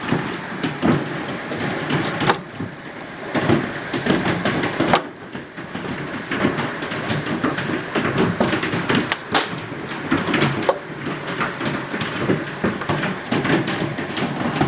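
Heavy rain mixed with hail falling on tarmac: a dense steady rushing patter, with many sharp ticks and a few louder knocks of hailstones striking hard surfaces.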